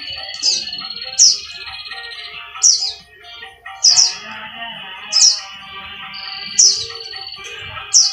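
A bird chirping: sharp, loud down-slurred chirps repeated about once every second and a bit, with steady high whistled notes between them, over background music.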